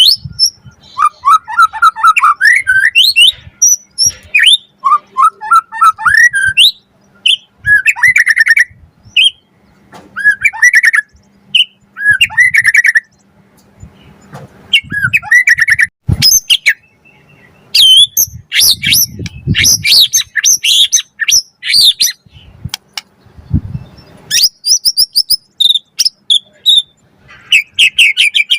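White-rumped shama (murai batu) singing a loud, varied song: short whistled phrases, sweeping notes and fast repeated-note trills, broken by brief pauses.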